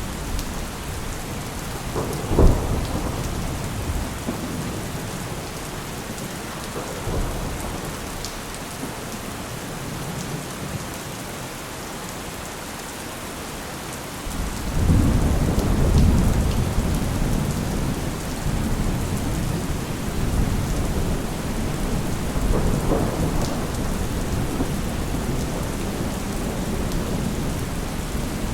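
Steady rain with thunder: a sharp thunderclap about two seconds in, then a long rolling rumble of thunder starting about halfway through and fading over several seconds.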